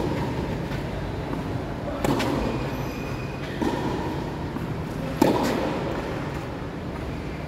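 Tennis ball struck by rackets in a rally: three sharp hits about a second and a half apart, the last the loudest, over a steady low background rumble.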